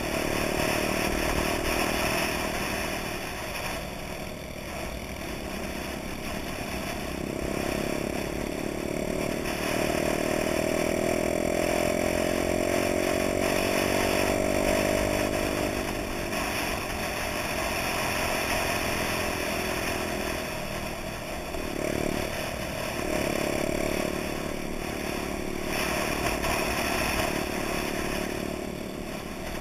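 Honda Dax mopeds' small four-stroke single-cylinder engines running under way. About a third of the way in, the engine note climbs steadily for several seconds, then settles. About three-quarters of the way through it drops off briefly and picks up again.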